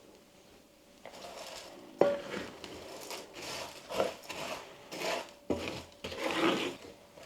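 A cooking utensil scraping and clinking against a pan, with one sharp knock, as stir-fried anchovies are stirred and tossed. The scrapes come irregularly after about a second of quiet.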